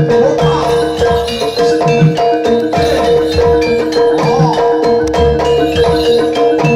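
Live Javanese gamelan music for jaranan dance: pitched gong-chime and metallophone notes repeating over regular hand-drum strokes, with one steady held tone underneath.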